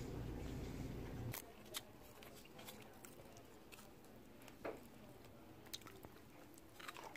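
A low steady hum that cuts off abruptly about a second in. It gives way to a few faint clicks and taps of spoon and dish handling, and a bite of food near the end.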